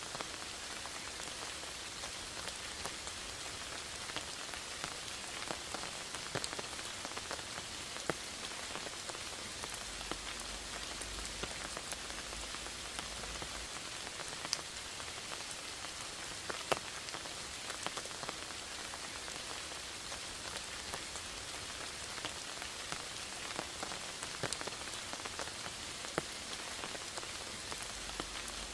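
Steady rain falling in a forest, a constant hiss with many separate drops ticking on leaves and surfaces.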